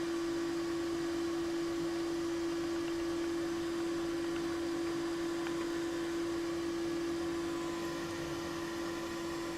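Balterley Beo Regent toilet cistern refilling after a flush: the fill valve gives a steady hum of one unchanging tone over a faint hiss of running water.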